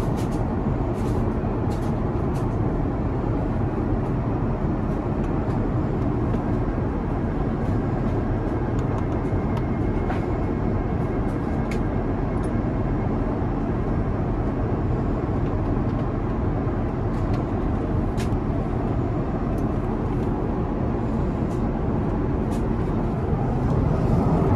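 Airbus A350 airliner cabin at cruise altitude: a steady rushing drone of airflow and engine noise, with a few faint clicks.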